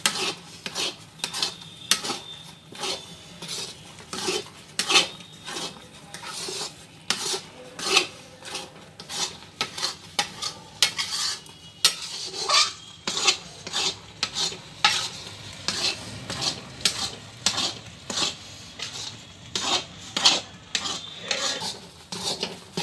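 Metal spatula stirring and scraping a thick mass of ground fresh coconut and condensed milk around a steel kadhai, in irregular strokes about one or two a second, as the mixture is cooked down until dry.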